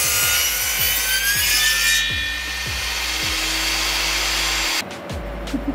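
Table saw running and cutting wood, over background music with a steady beat. The saw noise cuts off suddenly about five seconds in, leaving the music.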